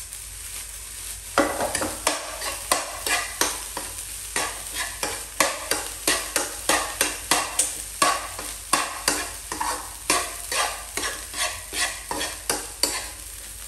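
Fried rice being stir-fried in a nonstick wok: a metal spatula scraping and scooping against the pan in quick regular strokes, about three a second, over a steady frying sizzle. The strokes start about a second and a half in, after a quieter moment.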